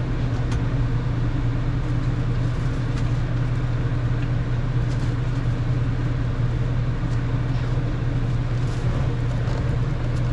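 A steady low mechanical hum, unchanging throughout, with a few faint clicks.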